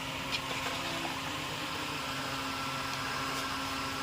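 Steady mechanical hum with an even hiss, with one faint click about a third of a second in.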